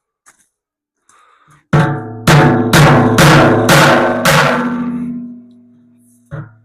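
Hammer blows on steel: six hard strikes about half a second apart, each leaving a ringing metallic tone that dies away, then one more blow near the end. The steel of the tractor's loader bucket is being beaten to flatten a hump so the bolt-on grab-hook plate sits flush.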